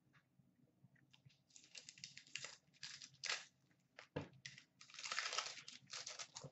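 Trading card pack wrappers crinkling and cards rustling as they are handled, in a string of short bursts. There is one sharp tap a little after four seconds in.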